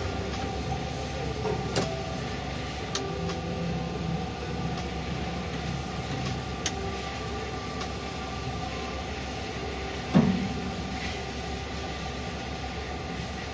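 Tower crane hoist machinery running steadily while the hook block is lowered: a continuous mechanical hum with a few light clicks and one sharp thump about ten seconds in.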